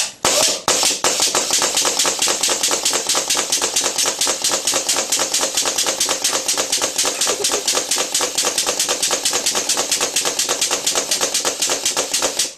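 A machine gives a rapid, even knocking, about six knocks a second, over a steady hum, then cuts off suddenly near the end.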